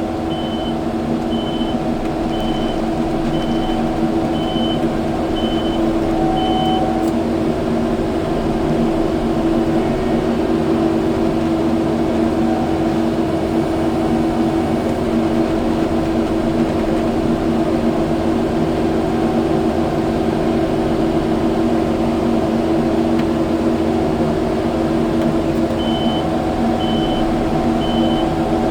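Kubota skid steer's diesel engine running steadily under load, with its reverse alarm beeping for the first several seconds and again near the end while it backs up.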